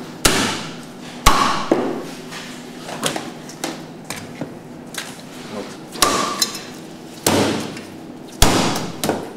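Chinese cleaver chopping into a large grouper on a round wooden chopping block: about five hard, irregularly spaced chops with lighter knocks between them, a couple with a brief metallic ring.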